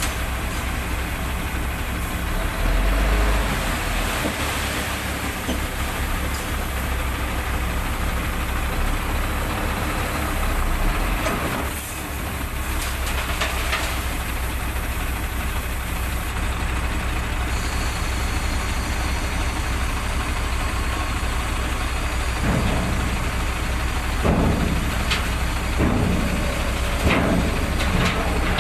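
Diesel engine of a HOWO dump truck running steadily while its tipper bed is lowered after unloading river sand. A few short louder sounds come near the end.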